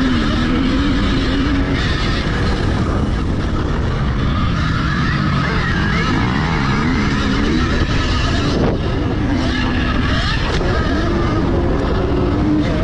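Electric motor whine of a 2018 Alta Redshift MXR electric motocross bike, repeatedly rising and falling in pitch as the rider speeds up and slows on the track, over loud wind rush on the microphone.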